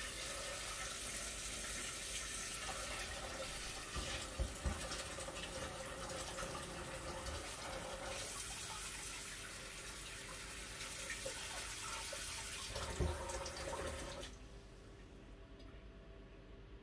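Water running steadily, with a few light knocks, then cut off suddenly about fourteen seconds in.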